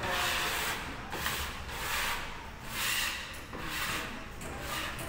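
Repeated scraping strokes of a hand tool working a gypsum board ceiling, about one stroke a second.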